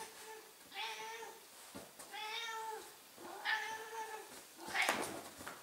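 Ragdoll cat meowing during hand-wrestling play: three drawn-out meows roughly a second apart, then a short, harsher, noisier sound near the end, the loudest moment.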